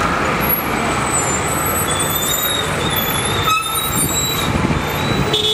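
Busy city street traffic noise, with car and truck engines running steadily.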